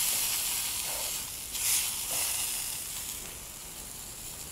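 Chicken sizzling in a hot frying pan as it is turned with tongs. The sizzle flares up briefly a little under two seconds in, then grows fainter.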